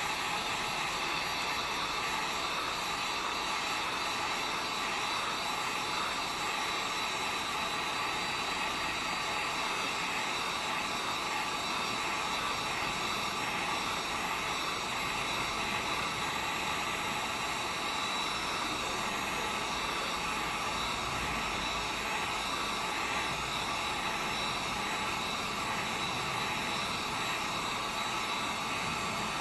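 Heat gun blowing hot air, a steady whooshing fan noise that holds unchanged throughout. It is warming the adhesive under an iPad's digitizer glass to soften it.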